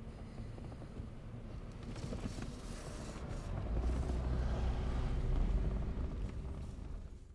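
Car engine and road noise heard from inside the cabin, a steady low rumble that grows louder about halfway through.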